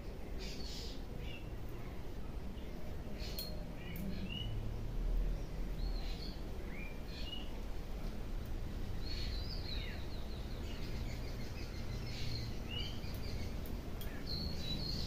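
Small birds chirping and calling in short notes that quickly rise and fall in pitch, over a steady low rumble.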